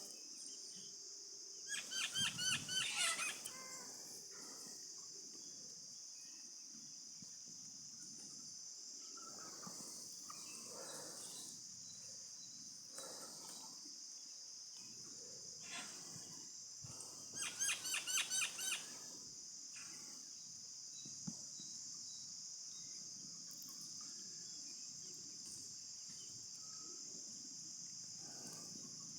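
Chickens giving two short bursts of rapid, repeated calls, about two seconds in and again near the middle. Steady high-pitched insect buzzing runs underneath.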